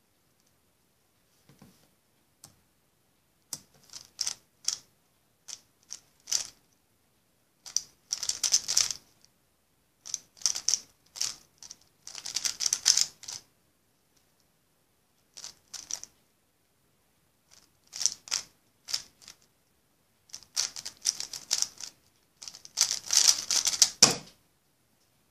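Plastic 3x3 speed cube being turned fast by hand: bursts of rapid clicking and clacking of the layers, broken by short pauses. The loudest, densest burst comes near the end and finishes with a thump as the cube is put down on the wooden table.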